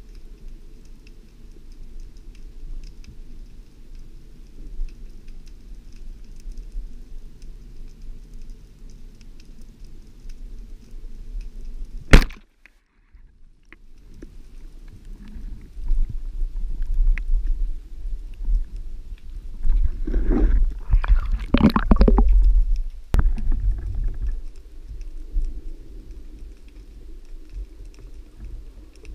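Underwater low rumble, broken about twelve seconds in by a single sharp crack as a wooden band-powered speargun, a Dapiran Saber 90, fires its shaft. A few seconds later comes a stretch of louder rushing, bubbling water noise.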